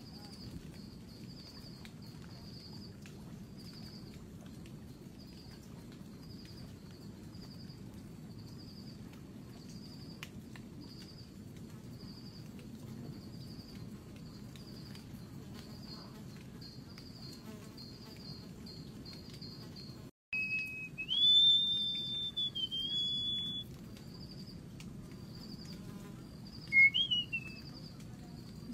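An insect chirping in short, evenly spaced high pulses, a little over one a second, over a low steady forest hum. After a short break about twenty seconds in, a bird whistles loudly in a few clear level and sliding notes, with one more brief whistle near the end.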